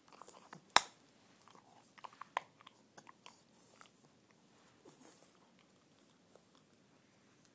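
English bulldog puppy chewing on a bottle cap: irregular sharp clicks and crunches of teeth on the cap, the loudest a sharp click about a second in and a quick cluster around two seconds, then sparser clicks.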